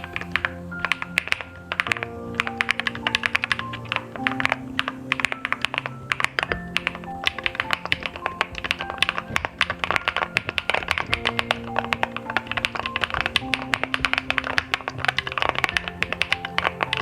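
Fast, continuous typing on a mechanical keyboard fitted with keycaps: a dense, irregular run of key clicks. Background music with held notes plays underneath.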